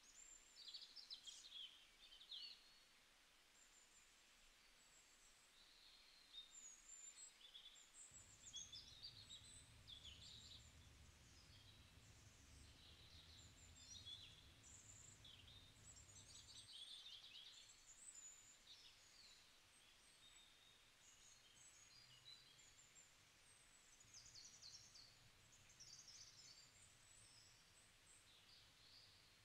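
Faint chirping of small birds: many short, high calls that keep coming throughout. A low steady hum sits under them from about eight seconds in until about seventeen seconds in.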